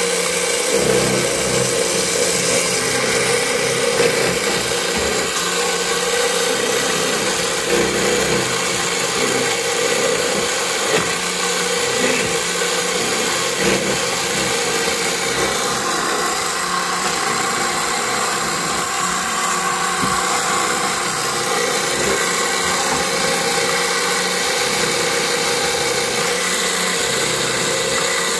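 Vertical key-duplicating machine running steadily, its spindle cutter milling a key blank while the tracer follows the original key, with a few small clicks.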